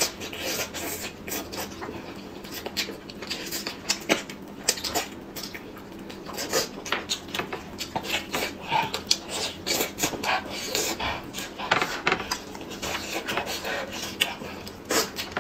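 Close-up eating sounds of a person tearing a whole cooked chicken apart by hand and chewing it: irregular wet clicks and smacks, with meat and skin pulling apart.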